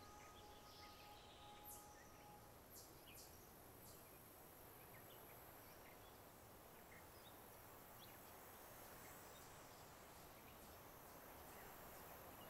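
Near silence: faint outdoor ambience with a few scattered faint chirps and ticks.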